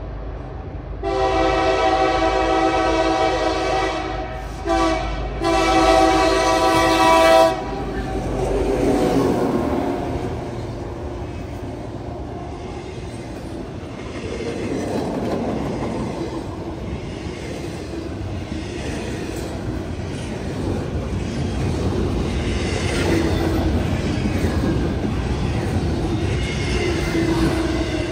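A freight locomotive's multi-chime air horn sounds for the grade crossing: a long blast, a short one and another long one. Then the locomotives and a double-stack intermodal train roll past with a steady rumble and clickety-clack of wheels over the rail joints.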